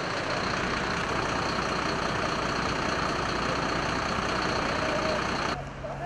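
Heavy vehicle engine idling steadily under a broad hiss, cut off suddenly near the end.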